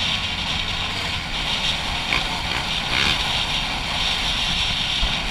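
Dirt bike being ridden at a steady pace: the engine runs at a fairly even note under a band of wind and road noise, with no clear rise or fall in revs.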